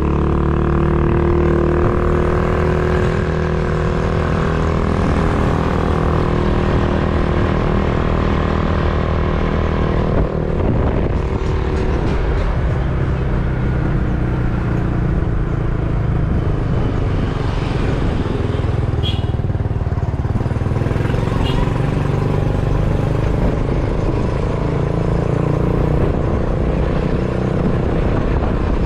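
Motor vehicle engine running steadily during a ride, with road rumble; the engine note changes about ten seconds in.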